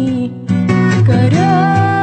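Song accompaniment on acoustic guitar, strummed, between sung lines; the music drops briefly just under half a second in, then picks up again with a held melody line.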